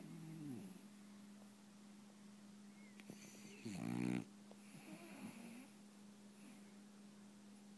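French bulldog snoring in its sleep: a snore at the start, a louder one about four seconds in, and a fainter one shortly after.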